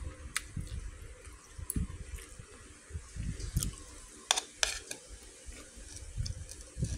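A metal spoon scraping and clinking against a bowl as it scoops up rice, with a few sharp clinks. The loudest come in a quick cluster about four and a half seconds in, over dull low bumps.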